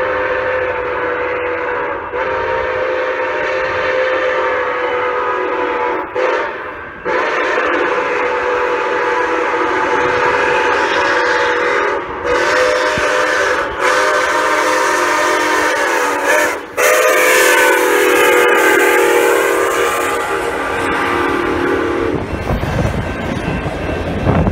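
Milwaukee Road 261, a 4-8-4 steam locomotive, blowing its steam whistle for the road crossing in a series of long blasts with short breaks, several notes sounding together. The whistle stops near the end, leaving the rumble of the passenger cars rolling past.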